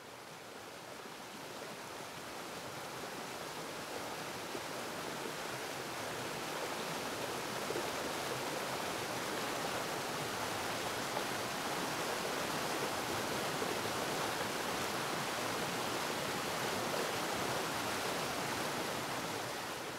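Steady rushing water of a tall waterfall, an even roar that swells gradually over the first several seconds and then holds.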